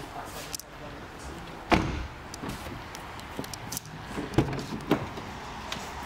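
A few knocks and clicks over low background noise: the loudest is a sharp thud about two seconds in, with two more knocks about four and a half and five seconds in.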